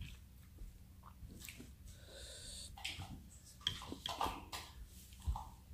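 Quiet eating sounds: soft breathing and chewing, with a few faint clicks of chopsticks against a plate.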